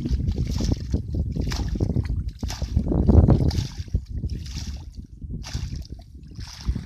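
Muddy water being bailed with a plastic scoop, splashing down about once a second, over a low rumble of wind on the microphone.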